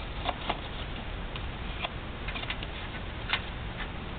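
A handful of light, irregularly spaced clicks and taps from hands working a plastic oil funnel around the engine's drain plug, over a steady low background noise.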